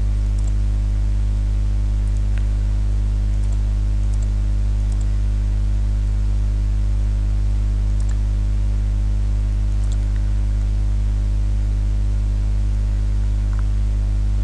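Steady low electrical hum with a ladder of evenly spaced overtones, and a few faint clicks scattered through, mouse clicks as sketch lines are placed.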